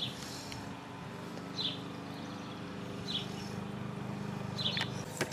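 A bird chirping outdoors: a short, high call repeated about every one and a half seconds, over a steady low hum. A sharp click near the end.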